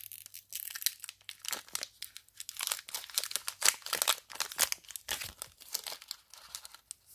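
Foil wrapper of a Pokémon trading card booster pack crinkling and tearing as it is picked and peeled open at its crimped top: a run of irregular sharp crackles and rustles.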